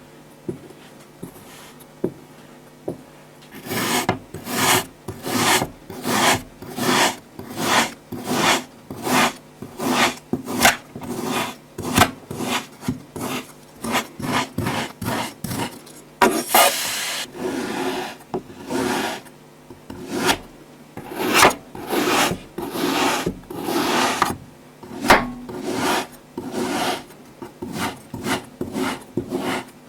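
Kinetic sand rasping under repeated scraping strokes, about three every two seconds, beginning about four seconds in, with one longer drawn-out stroke past the middle.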